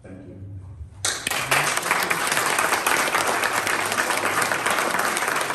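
Audience applauding: many people clapping, starting suddenly about a second in and continuing.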